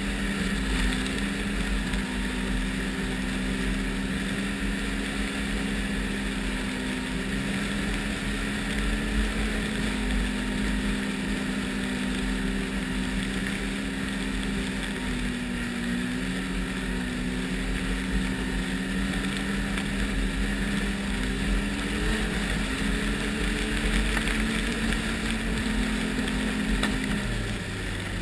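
Ski-Doo Renegade 1200 snowmobile's four-stroke three-cylinder engine running at steady high revs while cruising, with wind noise on the helmet microphone. Near the end the revs drop off to a lower pitch.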